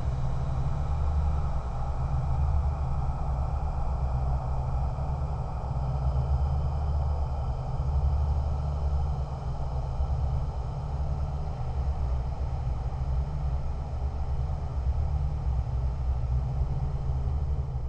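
Low, steady rumbling drone of a dark horror ambience, holding level with no distinct events.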